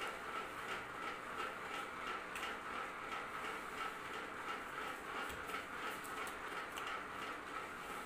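Ceiling fan running: a steady hum with soft, even ticks about three times a second.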